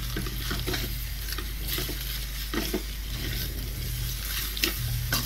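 Metal spatula stirring and scraping dry vermicelli with egg and vegetables around an aluminium kadai, with a few sharper scrapes against the pan near the middle and end, over a low steady hum.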